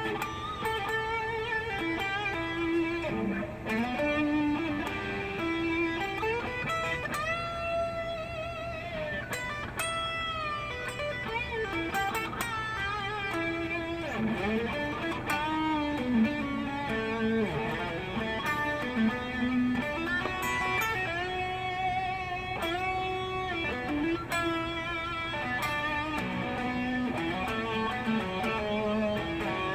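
Schecter C-1 Elite Diamond Series electric guitar played as a melodic line of single notes, many of them bent up or down and held with vibrato.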